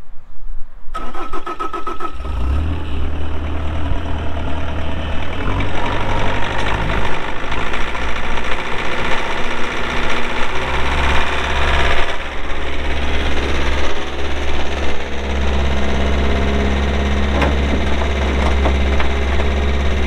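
Bobcat T590 compact track loader's diesel engine cranking on the starter and catching about two seconds in, then running steadily.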